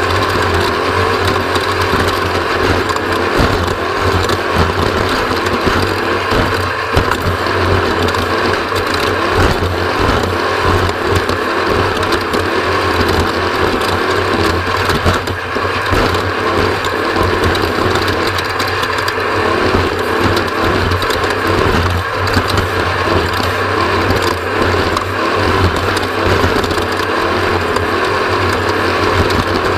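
Off-road race vehicle under way on a rough course: a steady loud engine drone with constant mechanical rattling and clatter.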